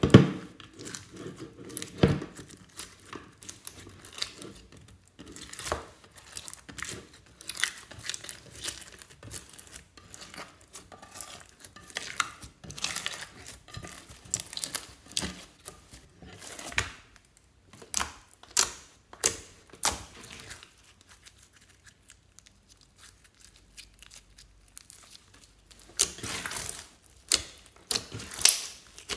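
Big foam-bead slime being squished and pulled apart by hand: irregular sticky crackles, pops and squelches as the beads and trapped air give way. Two dull knocks near the start come from the plastic tub on the table, and the crackling drops away for a few seconds about two thirds of the way through.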